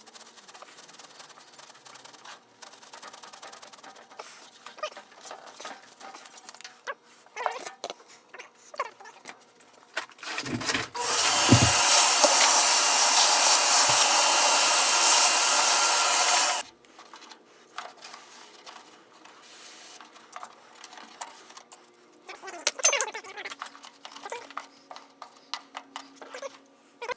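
Scattered scrapes and knocks of material being handled, then a power tool runs loudly and steadily for about six seconds near the middle and cuts off suddenly.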